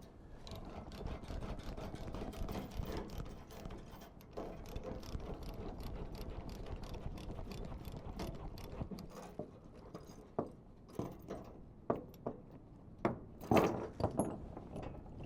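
Rapid metallic clicking of ratchet tie-down gear being worked, then sparser clicks and a few louder metal clanks near the end.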